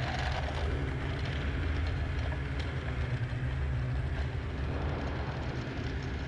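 Snowmobile engine running at a steady, low pitch as the sled rides slowly over packed snow.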